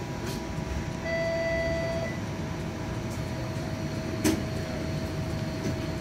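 Inside a TTC streetcar: a steady low rumble and an electrical hum from the car's equipment. About a second in, a single beep lasts about a second, and a sharp knock comes about four seconds in.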